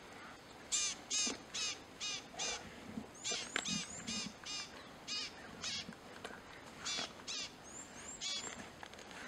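A series of short, harsh animal calls, each rising and falling in pitch, coming in quick runs of two or three a second with pauses between.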